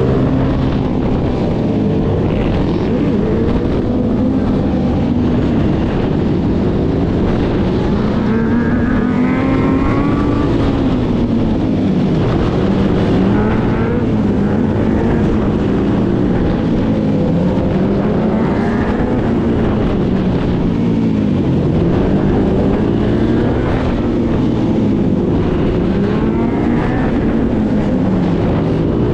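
Suzuki sport quad's engine under the rider, revved up and down over and over, its pitch rising and falling about every two seconds as the throttle is worked.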